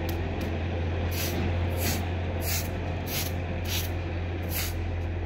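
Short hand broom swept in quick strokes across a rough concrete floor, about eight brisk swishes roughly half a second apart, over a steady low hum.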